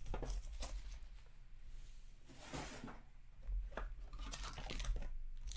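Plastic shrink-wrap crinkling as it is pulled off a cardboard trading-card box, then the box lid being lifted open with soft scrapes and a few light taps.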